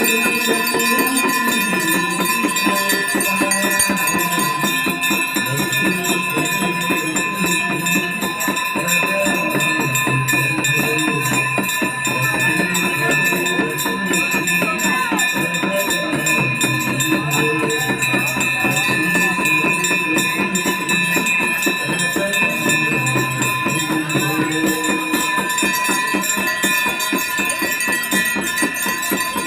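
Hand bells ringing fast and without a break during a Ganga Aarti, with a devotional aarti song sung over them.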